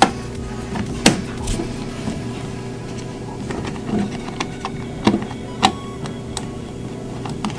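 Plastic switch cover plate clicking and knocking as it is fitted by hand over a wall light switch, a few sharp clicks spread through, over quiet background music.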